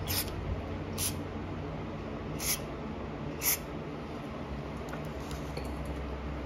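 Four short, light clicks, spread over about three and a half seconds, over a steady low hum.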